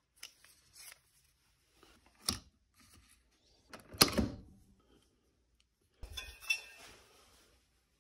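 Small plastic clicks and knocks of a Keurig single-serve coffee maker being handled: a pod picked out of a basket, then a sharp snap about four seconds in as the brewer's lid is closed. Near the end comes a short hiss as the machine brews into a mug.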